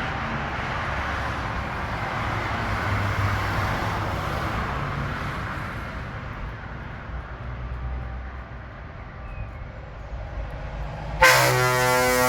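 A passing truck's diesel engine and tyre noise, slowly fading. About eleven seconds in, a loud truck air horn starts suddenly and holds a chord of several tones.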